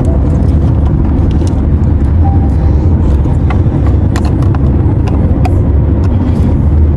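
Steady low rumble with scattered light clicks and taps.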